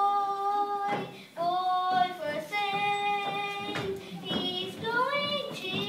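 Young children singing a song together, holding long notes that glide from one pitch to the next.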